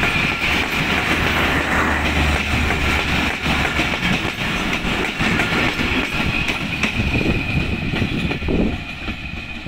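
Bangladesh Railway intercity express coaches rolling past close by, their wheels clattering over the rail joints in a steady rush. The sound drops away near the end as the last coach goes by.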